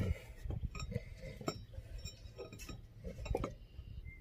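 Metal tools and parts being handled, giving a series of short, sharp clinks, several with a brief ring.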